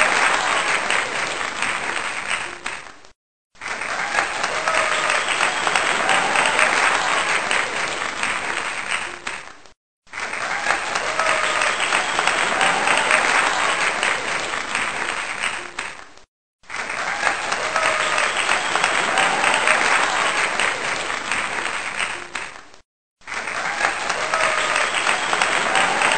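Crowd applauding, with a few voices calling out over the clapping. The same short stretch of applause repeats about every six and a half seconds, cut off by a brief silence between repeats.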